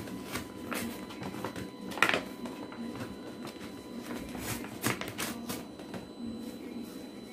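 Paper letter being opened and handled: faint rustling of paper with two sharp clicks, one about two seconds in and another near five seconds.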